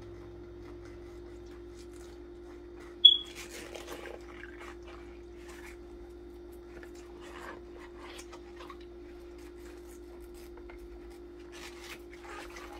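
A small brush scrubbing the end of a Frazier suction tip under soapy water: soft, scattered rubbing and scratching over a steady hum. A short, sharp, high squeak about three seconds in is the loudest sound.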